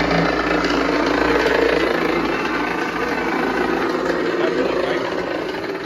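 Motorised vibrating floor of a Halloween walkthrough tunnel, running with a steady mechanical rumble and buzz that shakes underfoot. It eases slightly near the end.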